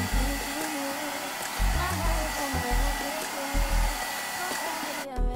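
Handheld hair dryer blowing steadily to dry lace glue along the wig's hairline, then switched off about five seconds in. Background music plays underneath.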